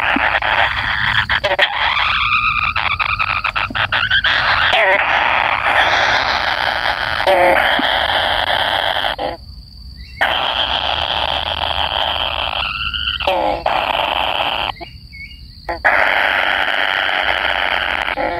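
Collared kingfisher nestlings giving harsh, raspy begging calls almost without a break, with two short pauses, about nine and fifteen seconds in.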